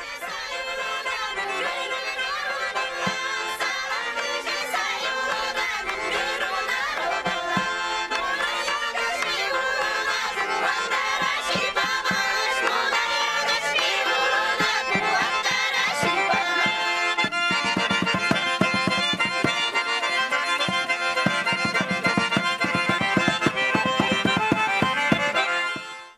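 Traditional folk-style instrumental music, its beat growing stronger in the second half and fading out at the very end.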